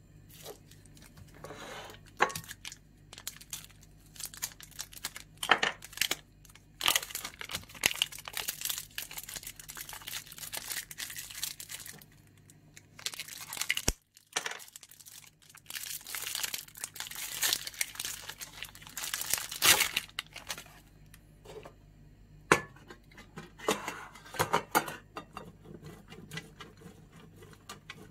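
Plastic cheese packaging crinkling and tearing in irregular bursts as a block of cheese is unwrapped by hand, with a brief pause about halfway.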